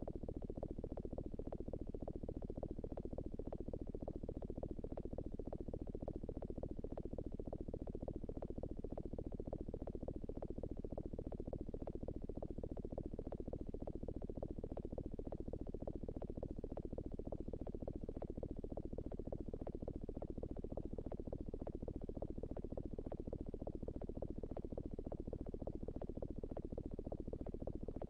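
Electronic glitch sound effect: a dense, rapid, low buzzing stutter of clicks that runs on unchanged.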